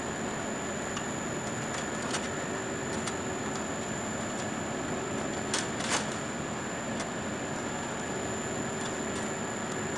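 Steady hum and hiss of running equipment, with a thin high whine over it, and a few light clicks; two sharper clicks come close together about five and a half to six seconds in.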